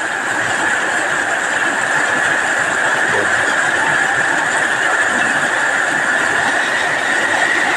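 Heavy tropical rain pouring down, a steady dense hiss with no let-up.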